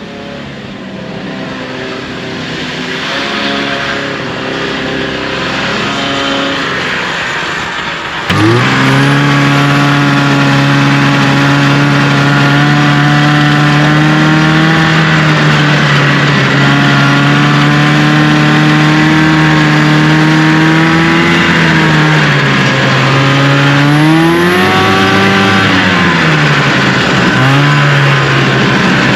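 The fan-cooled two-stroke 340 engine of a 1974 Arctic Cat Lynx snowmobile running. It starts with a quieter, shifting note, becomes suddenly louder about eight seconds in and holds a fast steady speed, then is revved up and back down near the end.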